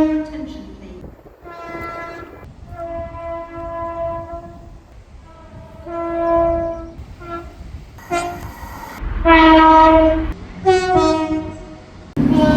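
A string of British train horn blasts, several of them two-tone horns sounding one pitch then another, some faint and distant, others close. The loudest and longest blast comes about nine seconds in, over the low rumble of a train.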